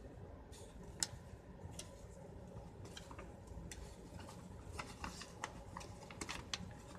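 Faint crinkles and clicks of paper being folded and creased by hand, with a sharper click about a second in and a cluster of them toward the end.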